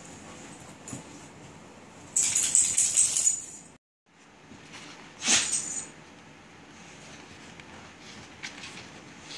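A dog digging and nosing in a duvet on a bed: two loud bursts of rustling and rattling bedding, one about two seconds in that cuts off suddenly, and a shorter one a little after five seconds, with small scuffs between.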